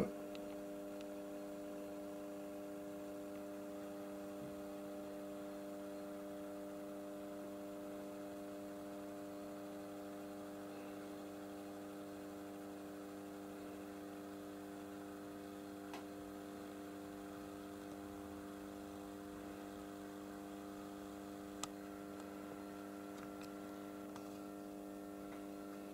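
Steady electrical mains hum, a fixed buzz of several tones with no change in pitch, with two faint clicks in the second half.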